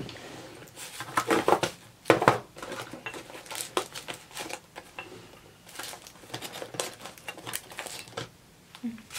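Hands rummaging through a drawer of stationery supplies. Small plastic and paper items click, clatter and rustle at irregular intervals.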